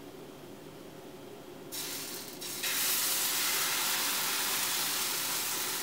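Pancake batter poured from a ladle into a hot buttered stainless-steel frying pan and sizzling. A brief hiss comes about two seconds in, then a steady, louder sizzle from just under three seconds on.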